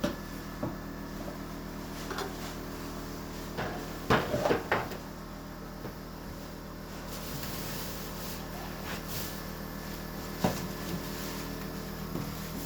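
A few sharp knocks and clatters, a quick cluster about four seconds in and a single louder one near ten seconds, over a steady low hum.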